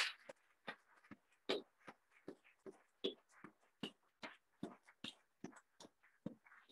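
Audience applauding, heard as faint, scattered single claps at about three to four a second.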